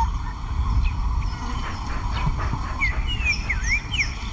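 Small birds chirping in a quick run of short rising and falling calls, over a steady low rumble.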